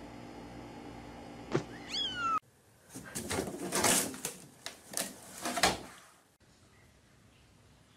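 A kitten gives a short meow that rises and falls, about two seconds in. After it comes a few seconds of irregular knocking and clatter as a cat scrambles in a wooden laundry hamper and its lid bangs.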